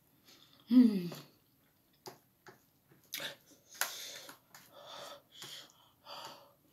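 A person's short groan falling in pitch about a second in, then a run of sharp, hissing breaths through the mouth, the reaction to the burn of very spicy noodles.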